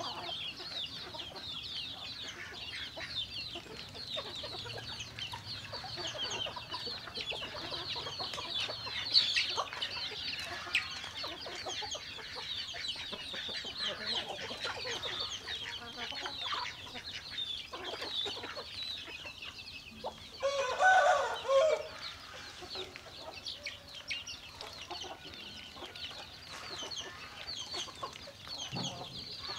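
A flock of chickens calling: many overlapping short, high calls throughout, with one louder, longer call about two-thirds of the way through.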